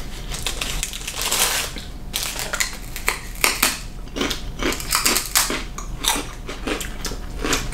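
Two people biting and chewing crunchy sweet rice cakes topped with white frosting: a dense, irregular run of crisp crunches.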